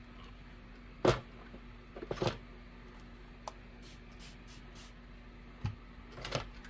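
A hard thump as a clothes iron is set down, knocks as a spray bottle is picked up, then four quick hisses of the bottle's pump sprayer misting the fabric, and knocks as the bottle is set back down.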